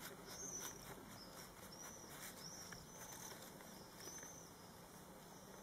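Faint crinkling of a plastic bag as a cat noses and burrows into it, with short high chirps several times.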